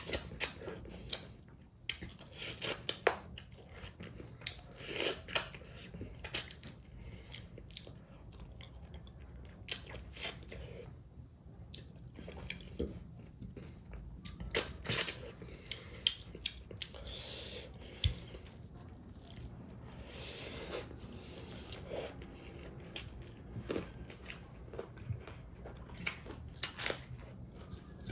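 A person chewing and biting food close to the microphone, with sharp crunchy bites at irregular intervals.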